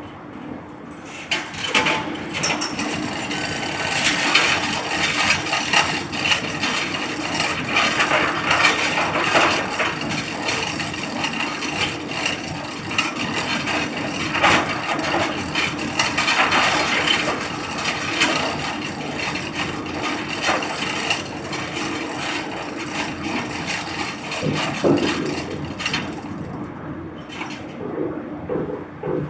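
Manual chain hoist being worked by hand: its steel hand chain rattles and clinks through the block in a dense, continuous clatter that starts about a second in and stops a few seconds before the end, over a steady low machinery hum.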